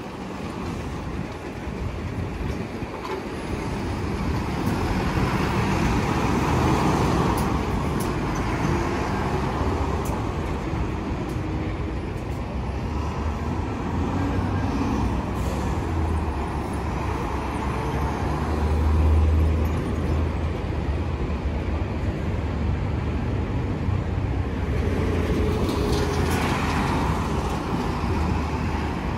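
Heavy diesel trucks passing on a city road: a flatbed semi-trailer rig pulls through at first, then more trucks go by, their engines a continuous low rumble that swells and fades, loudest a little past the middle.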